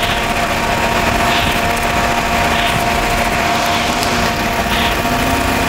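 220-grit sandpaper rubbed by hand over a fiberglass hull's gel coat, a soft rasp rising about once a second. Under it runs a steady machine hum, the loudest sound throughout.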